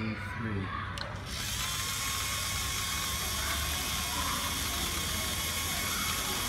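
LEGO Mindstorms robot's electric motors and plastic gears whirring steadily as it drives slowly over concrete, with a click about a second in.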